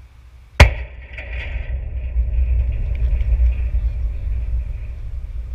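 A baseball striking the backstop close to the microphone: one sharp bang about half a second in, followed by a few seconds of low rumbling.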